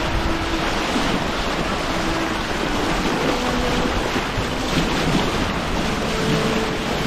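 Bow wave of a Maxi 95 sailboat rushing and splashing steadily as the hull cuts through the sea, with wind buffeting the microphone.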